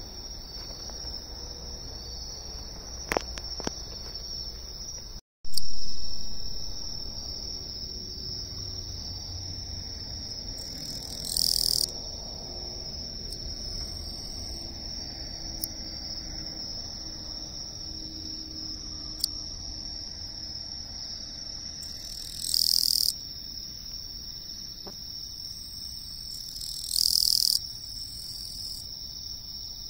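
Western Japanese katydid (Gampsocleis buergeri) singing: three loud buzzing "gii" calls, each under about a second, the first two about ten seconds apart and the last about four seconds later. Behind them runs a steady high-pitched trill of other insects. About five seconds in there is a brief dropout followed by a loud thump that fades over a second or so.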